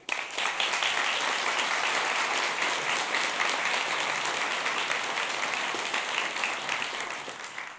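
Audience applauding: a dense patter of many hands clapping that starts abruptly and tapers off near the end.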